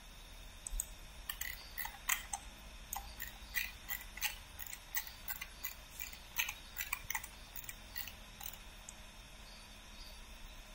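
Computer mouse clicking, quiet sharp clicks in an irregular run, several a second, stopping about a second before the end.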